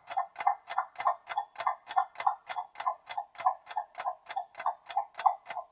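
Countdown-timer sound effect of a ticking clock: quick, even ticks, about five a second.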